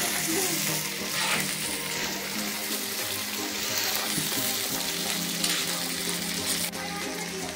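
Meat frying with a steady sizzle in a black iron wok over a wood fire, stirred with a metal ladle.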